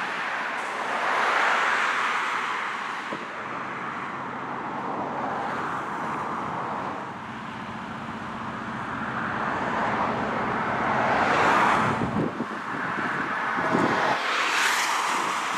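Road traffic: cars passing, the noise swelling and fading, loudest about a second in and again near the end.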